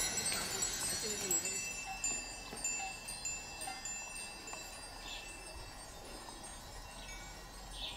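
Many small bells on the stupa spires' umbrella finials tinkling, a scatter of overlapping high ringing tones that is loudest in the first couple of seconds and then thins out.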